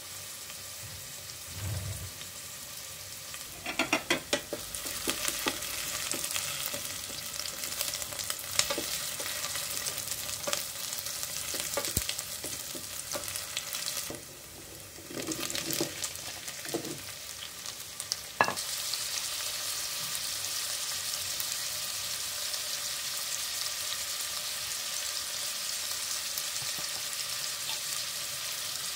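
Diced onion sizzling in hot olive oil in a stainless steel pot, with a wooden spatula scraping and tapping against the pot as it is stirred. After a sharp knock about two-thirds of the way through, the sizzle runs louder and steadier.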